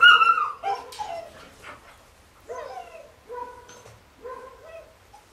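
German Shepherd puppy whining and yelping: a string of short high-pitched cries, the loudest at the start, then fainter ones roughly once a second.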